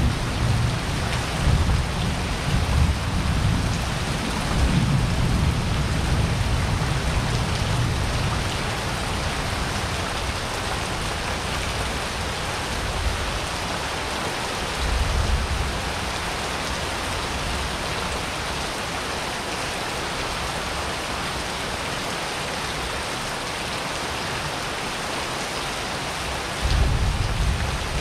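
Steady rain pouring down in a thunderstorm. Low thunder rumbles through the first third, rumbles again briefly about halfway, and swells once more near the end.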